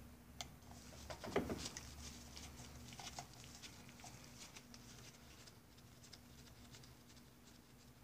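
Faint, scattered clicks and light taps of a screwdriver and small metal parts as a small screw is taken out of the cam follower on a Johnson 9.5 HP outboard's carburetor linkage. There is one brief louder low bump about a second and a half in, over a steady low hum.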